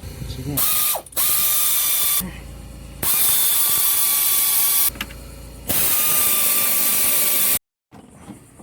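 Power ratchet run in four bursts, the longest about two seconds, each stopping abruptly; it is driving fasteners during an alternator swap on a truck.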